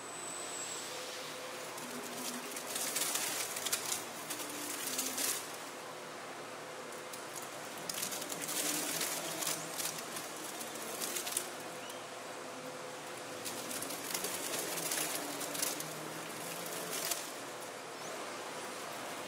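Glass VSMF mixing machine running, its rotating arm churning cooked chicken in a stainless steel bowl to shred it. A steady machine hum, with three surges of rustling, churning noise a few seconds long, coming about every five to six seconds.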